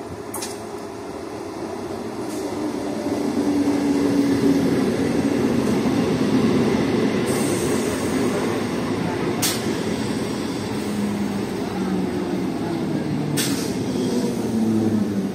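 Electric multiple unit (EMU) suburban local train running past along the rails. Its wheel and motor rumble grows loud over the first few seconds and then holds steady, with a few sharp clicks along the way.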